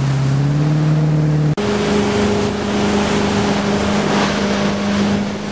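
Speedboat engine running steadily at speed, heard from aboard the boat under the rush of its wake and the wind. A brief dropout about a second and a half in, after which the engine note is higher.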